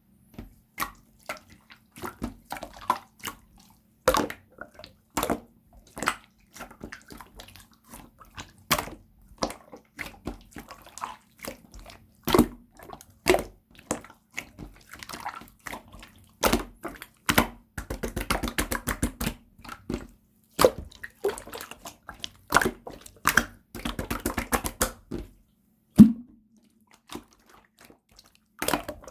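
Yellow clear slime being pressed, folded and poked by hand, giving a string of wet pops and clicks, with two stretches of fast crackling clicks and one loudest pop near the end. A faint steady low hum sits underneath.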